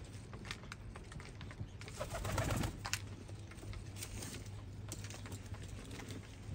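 Fancy pigeons cooing, over a scatter of small clicks from beaks pecking grain in a metal trough feeder, with a louder stretch about two seconds in.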